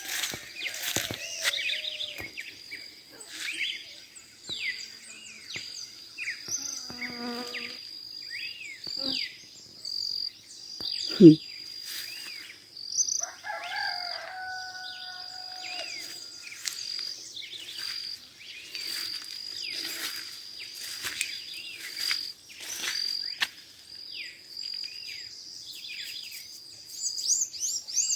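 Morning chorus of many small birds chirping and trilling over a steady, high-pitched insect drone, with a couple of lower, longer calls. One loud thump about eleven seconds in.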